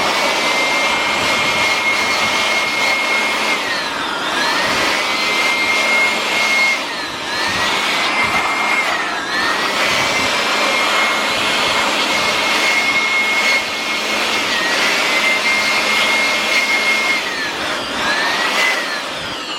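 Maxell 650 handheld electric blower running at full speed, a steady high motor whine with rushing air as it blows dust out of a computer. Its pitch dips briefly and recovers about six times.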